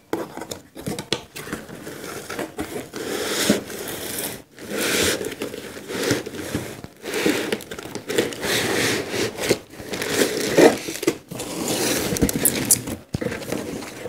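Cardboard laptop box being opened by hand: its flaps and inner cardboard lid rustling, scraping and crinkling in a continuous run of handling noise with small clicks, and the foam packing inserts being handled near the end.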